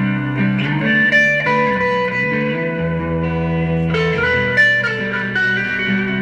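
Background music led by guitar, playing held, pitched notes and chords.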